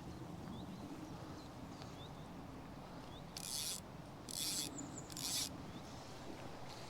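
Steady rush of river water with three short rasping rubs a little after the middle, each under half a second.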